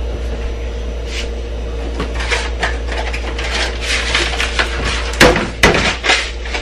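Crinkling and tearing of a Lipton onion soup mix packet being opened, with a few sharp knocks about five to six seconds in, over a steady low hum.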